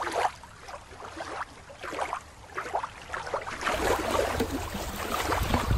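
Shallow water lapping and splashing at a rocky shoreline, in small irregular splashes.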